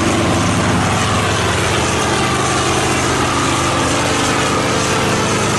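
A helicopter's engine and rotor running steadily at power during liftoff, an even, loud sound with several steady tones under a high hiss.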